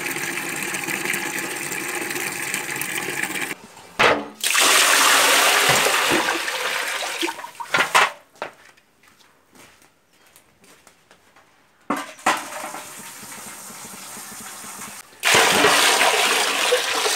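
Water from a tap running into a bucket, a steady rush. After a break come loud rushes of water and quieter knocks, and near the end a bucketful of water is poured into a tiled concrete tank, splashing loudly.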